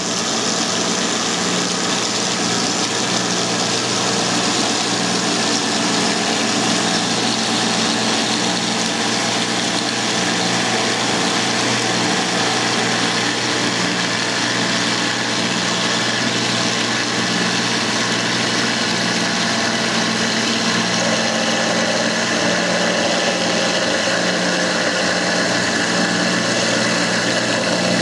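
An engine or motor running steadily, a constant drone that does not change.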